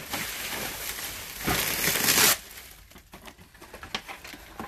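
Plastic wrapping crinkling and rustling as a cardboard box is pulled free of it, loudest for about a second in the middle, then quieter with a few light taps of the box being handled.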